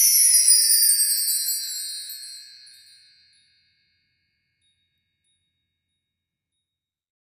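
Shimmering chime sound effect, many high tones sliding down in pitch together and fading out over about three seconds, then silence.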